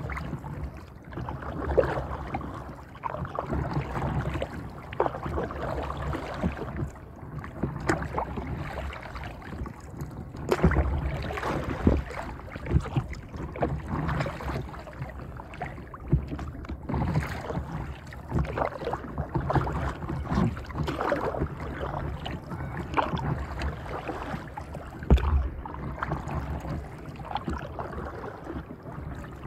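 Water lapping and splashing against the hull of a paddle board gliding across a lake, a busy run of small splashes and slaps. Low rumbles swell twice, about ten seconds in and near the end.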